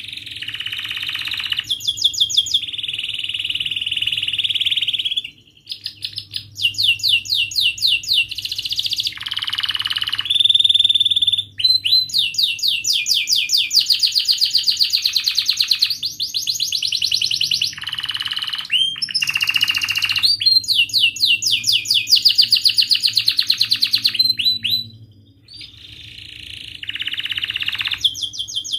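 Domestic canary singing a long, loud song of rapid rolling trills and chirps, the phrases running almost without a break, with short pauses about five seconds in and a few seconds before the end.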